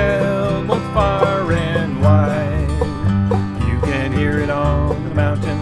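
Country-style song with plucked-string accompaniment and a singer carrying the chorus.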